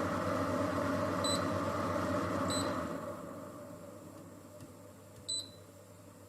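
Philips HU2716/10 humidifier's fan running steadily, with two short electronic beeps from its controls. Then the fan winds down over a couple of seconds, and a third, louder beep sounds near the end.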